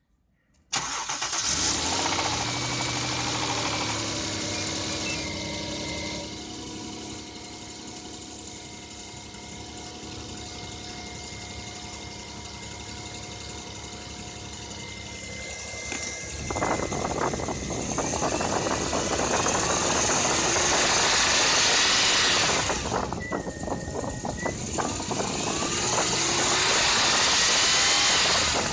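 Toyota 1JZ-GE straight-six cold-started about a second in, settling to idle, then revved up twice from about 16 s. The owner says it knocks for two seconds on a cold start and again around 3000 rpm, which he takes for a spun bearing shell.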